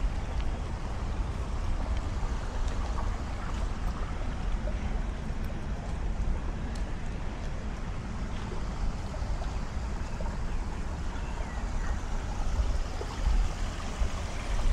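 Steady rushing noise with a low rumble, unbroken and without distinct events.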